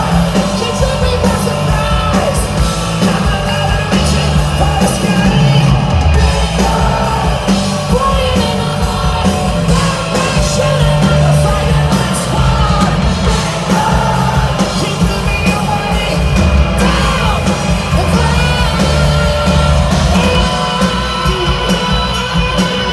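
Live hard rock band playing loud, with a male singer singing and yelling over electric guitar, bass and drums, heard from within the crowd with a heavy, boomy low end.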